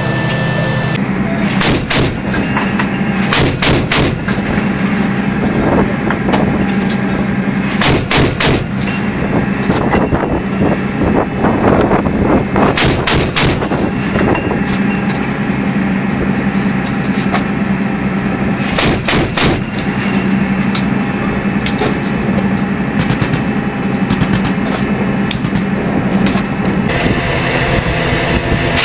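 Light armored vehicle's turret gun firing short bursts of a few rounds every few seconds, over the steady hum of the vehicle.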